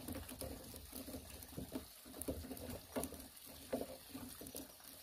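A thin bamboo strip being wound and pulled tight around the crossing of two green bamboo poles: irregular small rustles, creaks and clicks of the strip rubbing on the bamboo.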